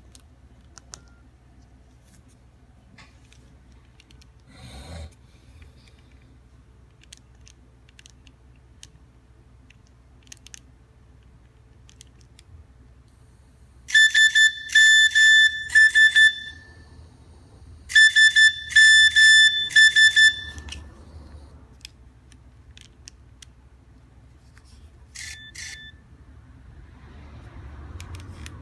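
Nokia 3220 mobile phone sounding a ringtone: two bursts of rapid, evenly pulsed beeps on one high pitch, each about two and a half seconds long and a little over a second apart, then a short double beep near the end.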